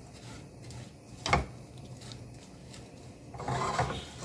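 Wooden spatula stirring fried bitter gourd and onions in a nonstick frying pan: a sharp knock against the pan about a second in, and a longer scrape near the end.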